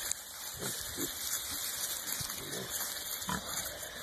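Hereford piglets grunting in a few short, low grunts while they root about, the clearest near the end, over a rustling crackle of dry straw and dirt.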